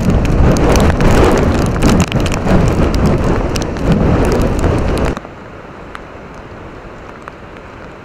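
Typhoon winds gusting hard and buffeting the microphone, with rain pelting down. About five seconds in this cuts off abruptly to a much quieter, steady rush of wind and sea with a few faint ticks.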